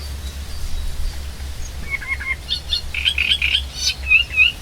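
A songbird singing bright chirps and quick trills starting about two seconds in, ending with two short slurred whistles, over a steady low wind noise.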